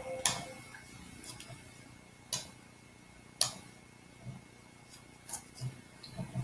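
Computer mouse clicking: single sharp clicks, about one a second, as buttons and list items are selected.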